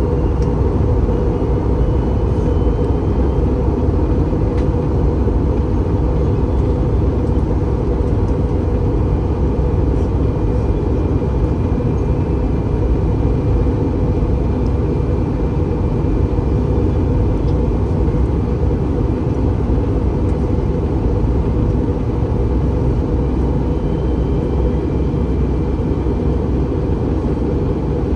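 Steady cabin noise inside an Airbus A321 airliner in flight: a dense, even rush of airflow and engine drone heard from a window seat, with a faint high whine.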